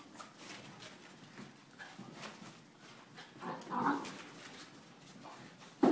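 Dogs at play on a carpeted floor: a short dog vocalisation about three and a half seconds in, over light scuffling and clicks, then a sharp loud sound right at the end.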